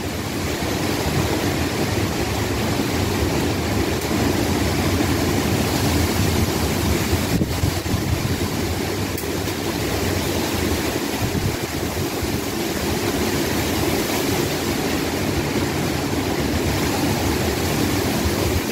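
Tropical-storm wind and rain: a steady rushing of falling rain and gusting wind, with wind buffeting the microphone.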